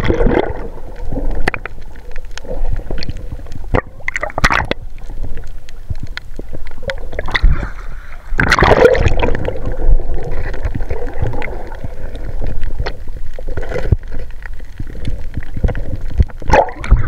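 Sea water gurgling and sloshing close to the microphone, with scattered sharp clicks and knocks and a few louder surges of water noise.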